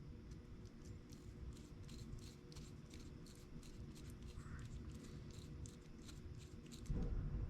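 Faint, irregular small scratching and clicking of a commutator-cleaning tool being turned by hand against a Tyco slot car motor's commutator. A soft thump comes about seven seconds in.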